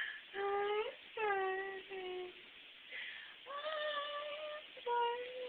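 A high voice singing a string of about five wordless held notes, some sliding down in pitch at the start.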